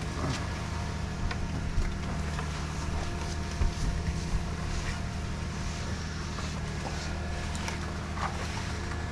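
A heavy truck's diesel engine running steadily, with scattered light knocks over it.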